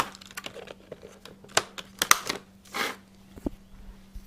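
Nylon trimmer line and a plastic string-trimmer head being handled: a string of sharp clicks and short crinkly rustles, with a faint steady hum underneath.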